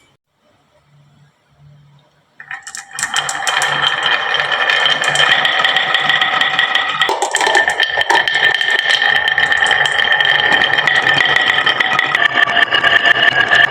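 Many marbles rolling and clattering down a wooden marble-run slope, starting about two and a half seconds in: a dense, continuous rapid clicking with a steady ringing tone over it.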